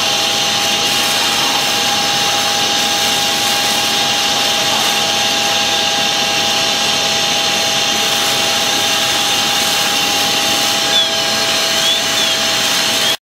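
Fire apparatus engines and pumps running hard to supply the hose lines: a loud, steady mechanical drone with two steady whining tones. It cuts off abruptly near the end.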